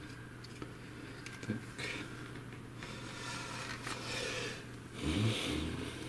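Soft scraping and rustling as the plastic top cover of a Mamibot robot vacuum, with its circuit board and wires, is handled and lowered back onto the base, over a steady low hum.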